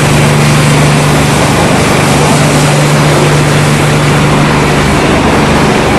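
Corn tortilla chip production line machinery running: a loud, steady mechanical din of motors and conveyors with a constant low hum underneath.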